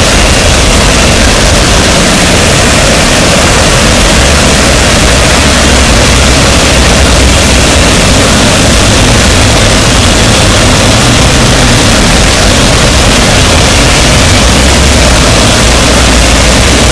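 Harsh noise wall: a static, unbroken wall of distorted noise at full loudness, spanning deep rumble to high hiss, with the low rumble wavering slightly underneath.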